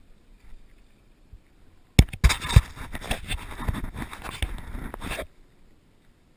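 A burst of heavy thumps followed by about three seconds of scraping and clattering, starting and stopping abruptly about two seconds in.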